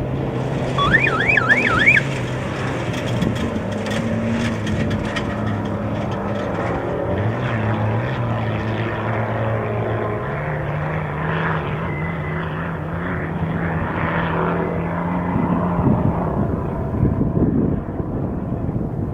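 Off-road race vehicle engine running, its pitch stepping up and down with throttle and gear changes. About a second in, a brief warbling, siren-like electronic tone rises and falls about four times.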